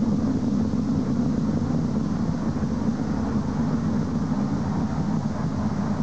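Steady low rumble of a Delta II rocket in powered ascent, its main engine and strap-on solid ground-start motors burning.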